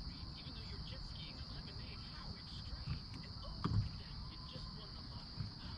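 Steady, high-pitched chorus of insects, likely crickets, over a low rumble. A single thump comes a little over halfway through.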